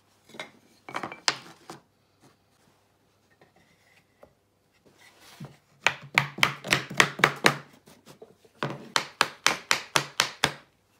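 A small hammer taps a thin wooden wedge tight between a cutting-board blank and the rails of a wooden jig, to lock the board in place. There are two quick runs of about ten light taps each, roughly six a second, after a brief clatter of wooden wedge strips being handled.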